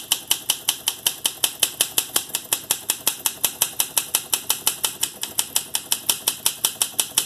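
Olympia Deluxe manual typewriter being typed in a fast, even rhythm, about six key strikes a second, each typebar clacking against the platen as the carriage steps toward the right margin.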